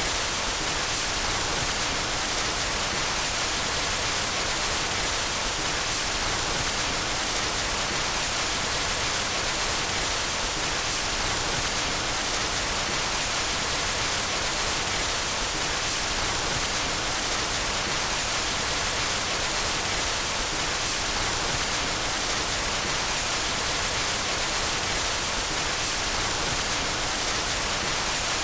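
Steady white noise: an even hiss, brightest in the treble, with no change in level.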